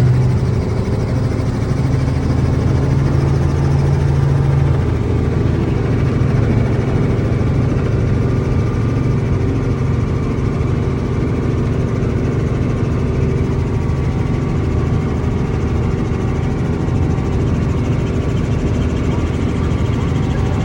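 Sightseeing helicopter's engine and rotor running steadily as it climbs, a loud low hum with steady higher tones over it.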